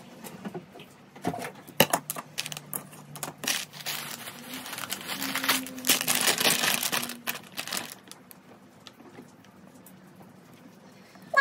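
Crinkling of a plastic snack bag being handled, loudest from about three and a half to seven and a half seconds in. It follows a few sharp knocks and clicks near the start.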